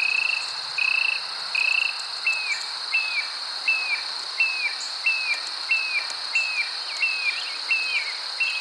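Outdoor animal sounds: a steady high insect drone, with a short chirped call repeated about every two-thirds of a second. The first chirps are level and later ones bend down at the end.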